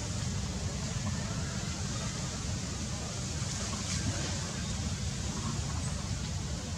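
Steady low rumbling background noise with a faint click about four seconds in.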